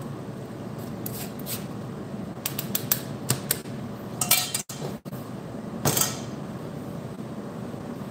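Metal mesh strainer clinking and knocking against a glass jar and a stainless steel bowl as the pomegranate pulp is knocked out of it: a run of sharp light clinks, then two louder knocks around four and six seconds in.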